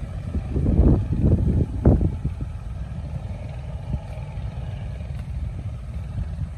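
Wind buffeting the microphone with a steady low rumble, and a burst of louder rustling and crunching about one to two and a half seconds in.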